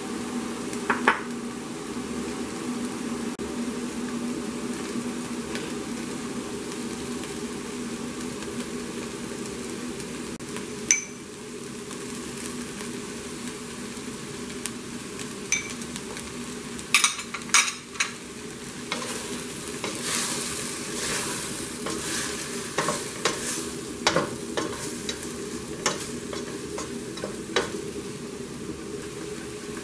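Meat, onion and frozen green peas sizzling in oil in a stainless steel pot, with sharp clicks and taps scattered through as spices are added. Toward the end a wooden spoon stirs through the mixture. A steady low hum runs underneath.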